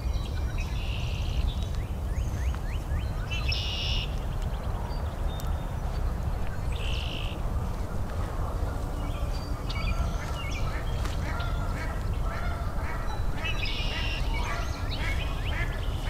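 Wild birds singing and calling in a spring forest. There are separate high calls every few seconds, and a rapid series of short calls starts about halfway through and carries on to the end, over a steady low rumble.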